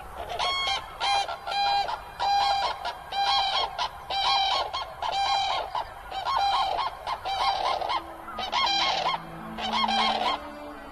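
Common cranes giving their unison call: a mated pair trumpeting in synchrony, loud calls repeated about twice a second. This duet is the pair-bond display of cranes that mate for life.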